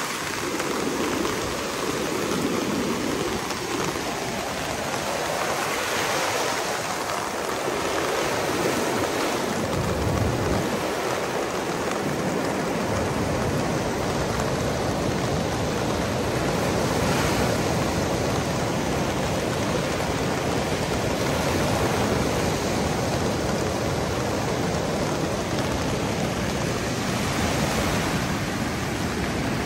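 Heavy rain falling in a steady, continuous hiss, with a deeper rushing that joins in about ten seconds in and carries on.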